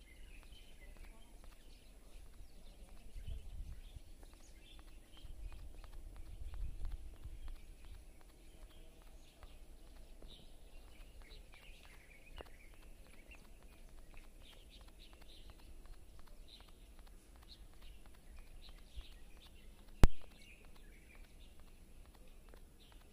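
Small birds chirping repeatedly over faint outdoor background noise, with a low rumble that swells twice in the first several seconds. One sharp click stands out about twenty seconds in.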